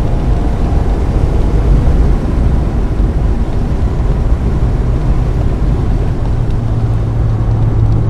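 A 1995 Mazda Miata's 1.8-litre four-cylinder engine running under load on track, heard from inside the cabin, over a steady rush of road and wet-tyre noise. The engine note holds fairly steady and grows a little stronger near the end.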